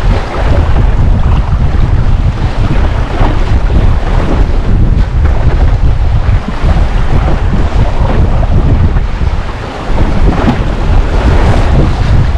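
Wind buffeting the microphone aboard a small sailing dinghy under way, with the rush of water along the hull beneath it. The low wind rumble is the loudest part, unbroken except for a brief dip about ten seconds in.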